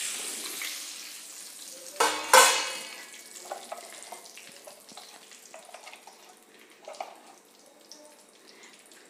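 Red chilli, cumin and asafoetida sizzling in hot oil in a kadhai, the sizzle fading over the first few seconds. A steel spoon clatters against the pan about two seconds in, the loudest sound, followed by light scrapes and clicks as it stirs.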